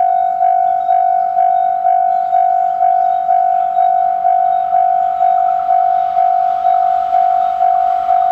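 Japanese railway level-crossing warning bell ringing, a steady repeating electronic ding a little over twice a second. Train noise rises faintly under it in the last few seconds as the train approaches.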